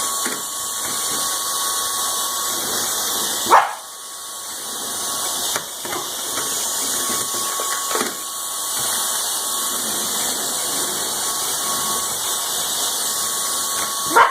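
Dyson Slim vacuum running with a steady high hiss and whine while a corgi barks at it, with loud barks about three and a half seconds in, around eight seconds in and at the very end.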